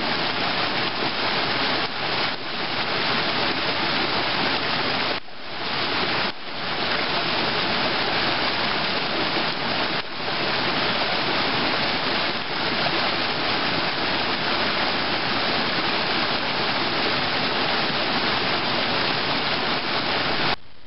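Steady rush of flowing water, like a stream or small waterfall, with brief dips about five, six and ten seconds in; it cuts off suddenly just before the end.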